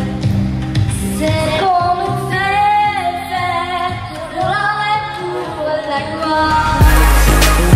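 A girl singing long held notes over quiet background music; near the end a heavy beat with deep bass comes in.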